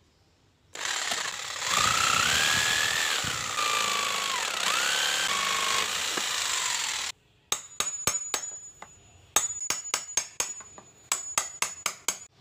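Corded Maktec jigsaw cutting through a meranti board for about six seconds, its motor whine rising and falling as the blade bites, then stopping abruptly. After a short pause comes a run of sharp, irregular metallic knocks, a dozen or more, from a chisel being struck into the wood.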